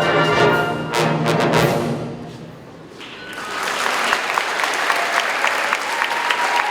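Wind orchestra holding a final brass-heavy chord, ended with sharp accented hits about a second in that ring away. Audience applause breaks out about three seconds in and carries on steadily.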